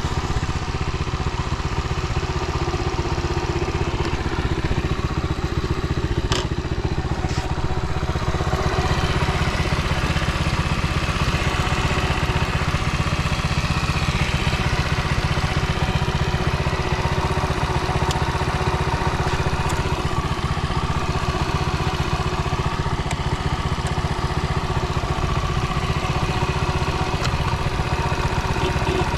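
Honda Dax 70's small single-cylinder four-stroke engine idling steadily, running smoothly with no abnormal noise.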